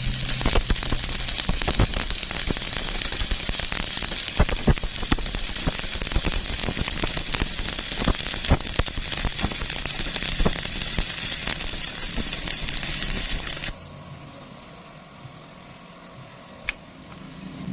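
Arc welding: the electric arc crackles and sizzles steadily with frequent sharp pops, then cuts off suddenly about 14 seconds in as the arc is broken.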